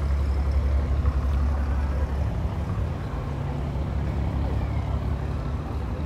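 Steady low mechanical drone, a deep engine-like hum that eases slightly about two seconds in.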